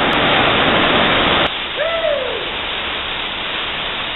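Rushing water of a rocky stream and waterfall, a steady noise that drops suddenly to a quieter level about a second and a half in. Just after the drop comes a single short hooting call that rises and then falls in pitch.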